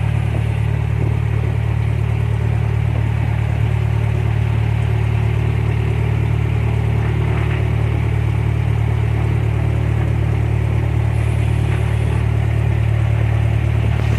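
Cessna 172's piston engine running steadily, heard from inside the cabin as a loud, even low drone with no change in speed.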